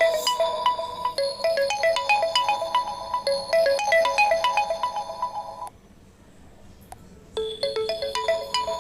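Mobile phone ringtone playing a quick, bright melody of short bell-like notes. It stops abruptly partway through and starts over about a second and a half later as the ringtone loops.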